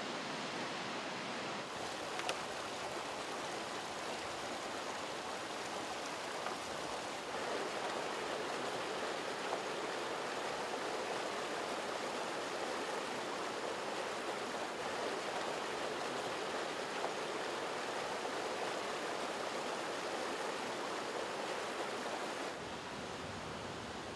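River water rushing steadily, a dense even hiss that brightens slightly about two seconds in and drops a little near the end.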